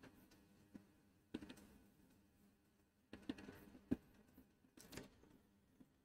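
Faint, scattered clicks and taps of a computer keyboard and mouse, in three short clusters with the sharpest click about four seconds in, over a faint low room hum.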